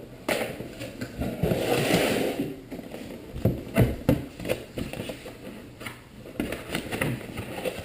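A product box and its packaging being handled and opened by hand: a scraping rustle for the first couple of seconds, then scattered taps and clicks of cardboard and plastic.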